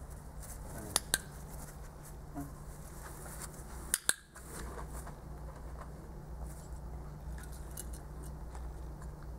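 Two pairs of sharp clicks, each a quick click-click, about a second in and about four seconds in, over a steady low hum.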